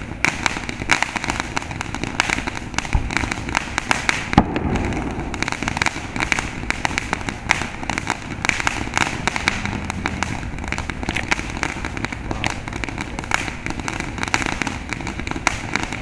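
Ground fountain firework spraying sparks: a continuous hiss full of dense crackling pops, with one louder crack about four seconds in.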